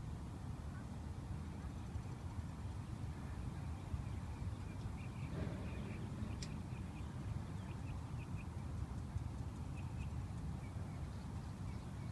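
Outdoor ambience: a steady low rumble, as of wind on the microphone, with faint short high chirps scattered through the middle and one sharp click about six and a half seconds in.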